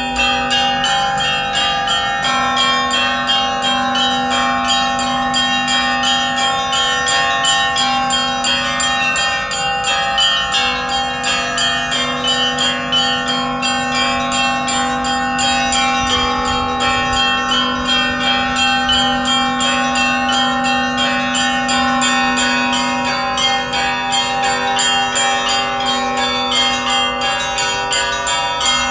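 Russian Orthodox church bells rung in a festive peal: many small bells struck in quick succession over the sustained ring of larger bells.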